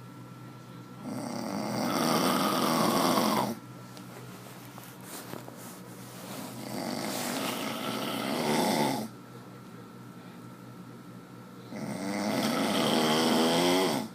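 A man snoring: three long snores, about five seconds apart.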